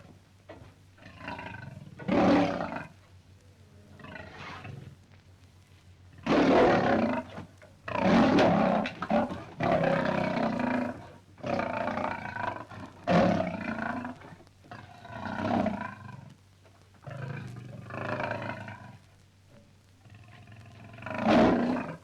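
Lions roaring: a string of separate roars, some long and some short, about a dozen in all, with one of the loudest near the end.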